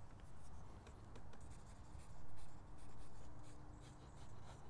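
Drawing tool scratching on paper in a rapid, irregular run of short strokes.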